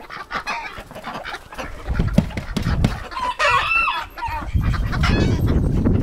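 Chickens clucking, with a rooster giving a short crow about three and a half seconds in, over a low rumbling noise on the microphone.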